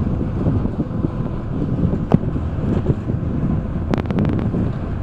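Wind buffeting the microphone with low rumble from a moving vehicle, steady throughout. There is a single click about two seconds in and a quick run of about half a dozen sharp clicks about four seconds in.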